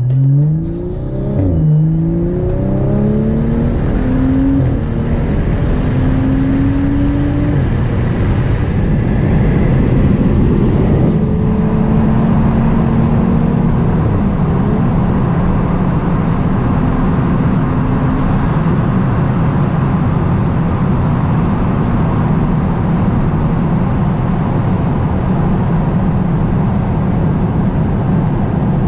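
BMW F30 3 Series engine accelerating hard, its pitch climbing and dropping back at two upshifts in the first couple of seconds, then climbing more slowly before settling into a steady drone at cruising speed. Tyre and wind noise run under it, heard from inside the cabin.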